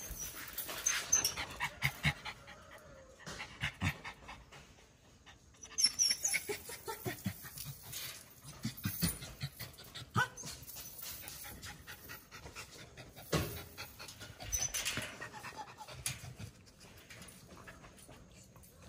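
A dog panting, with scattered light clicks and rustles from the dogs moving about.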